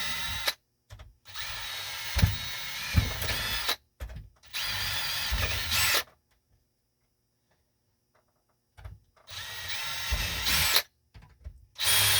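Power drill with a small bit drilling pilot holes into plastic. It runs in several bursts of one to two seconds, with a pause of about three seconds midway.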